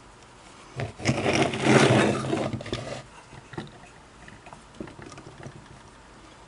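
Handling noise: a scraping, rustling sound lasting about two seconds, starting about a second in, followed by a few faint small knocks.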